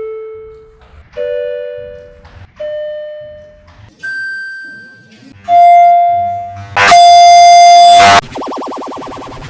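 Electronic elevator arrival chime (Vertechs) played again and again in sound-effect-altered versions: single dings that start sharply and die away, shifting in pitch, about one every second and a half. Near the end comes a very loud, harsh, distorted version held for over a second, then a buzzing, rapidly pulsing warble.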